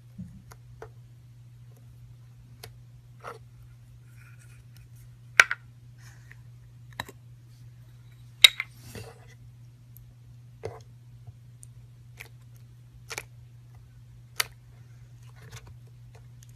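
Slime being handled, giving about a dozen sharp, irregular clicks and snaps, the loudest about five and eight seconds in, over a faint steady low hum.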